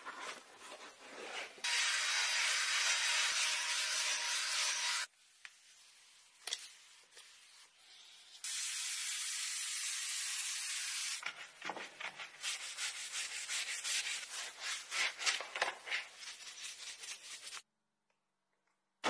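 Car-detailing cleaning sounds: a microfibre cloth rubbing on an interior door panel, then two stretches of steady hissing of about three seconds each, then quick irregular scrubbing strokes for about six seconds.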